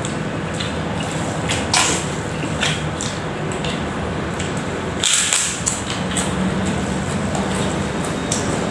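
Instant noodles being slurped and eaten from a wok, with a spoon and fork scraping and clinking against the pan, a few sharp slurps or scrapes standing out about two and five seconds in. A steady background hum runs underneath.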